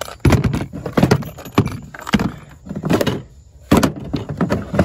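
Metal tools and drill bits clattering and clinking as they are rummaged through and picked over, in irregular knocks about every half second to second.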